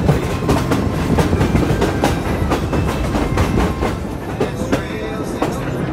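Passenger train rolling along the track, heard from on board: a steady rumble of wheels on rail with a rapid, uneven clatter of clicks from the wheels and couplings.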